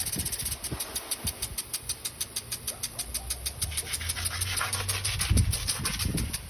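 Lawn sprinkler spraying, a rapid rhythmic ticking hiss of about seven pulses a second. A low rumble like a passing engine sits in the middle, and a couple of dull thumps come near the end.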